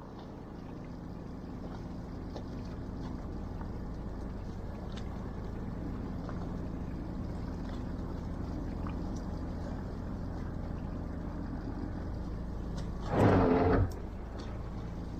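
Fishing boat's engine running with a steady low hum. About thirteen seconds in, a loud rush of noise lasts about a second.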